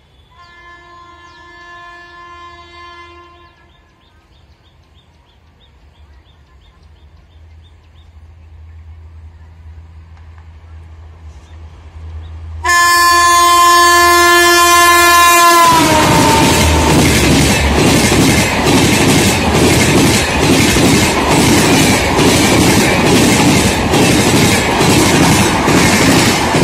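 Gatiman Express passing: its electric locomotive sounds two horn blasts, a fainter one and then a loud one about halfway through whose pitch drops as the engine goes by. The coaches follow in a loud rush with rapid clickety-clack of wheels over rail joints.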